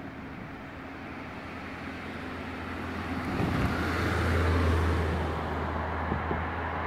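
A road vehicle passing on the bridge road, its tyre and engine noise swelling to a peak about four to five seconds in, then easing off.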